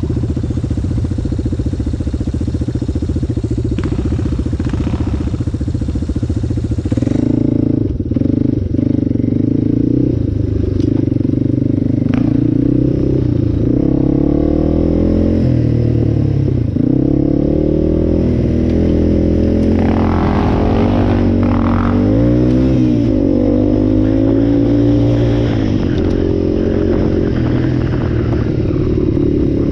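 Yamaha ATV's single-cylinder engine running under way, its pitch rising and falling as the throttle is opened and eased, with a few knocks and rattles from the machine over the rough trail.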